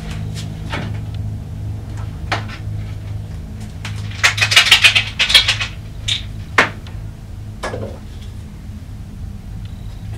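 Dishes and kitchen utensils clattering on a counter: scattered single knocks, then a quick run of clinks and knocks about four seconds in, over a steady low hum.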